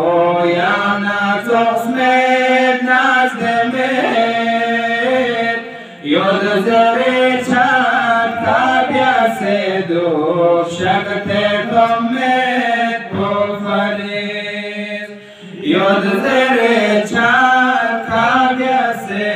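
A man's voice chanting a Balti qasida, a devotional Islamic poem, in long held, gliding melodic lines. It breaks briefly about six seconds in and again about fifteen seconds in.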